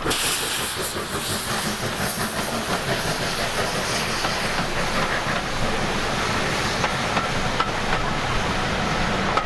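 Passenger coaches of a steam-hauled train rolling steadily past, wheels rumbling and clicking over the rail joints, with a steady hiss.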